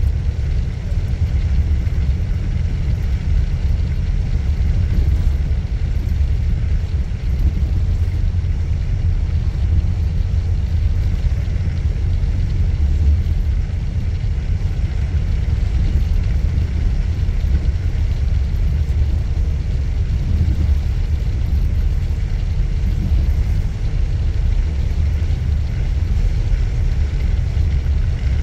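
Steady low rumble of a moving bus heard from inside the cabin: engine and road noise at cruising speed on the highway.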